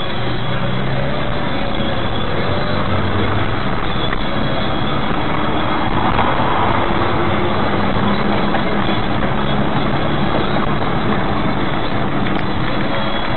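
Car driving steadily along a street, its engine hum and tyre and road noise heard from inside the cabin through a dash cam's microphone.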